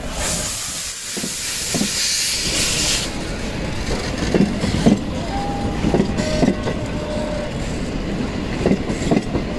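Metre-gauge steam locomotive U 29.101 Krutwig hissing loudly as it passes, steam venting around its cylinders, the hiss cutting off about three seconds in. Then the carriages' wheels click in pairs over the rail joints as the train rolls by.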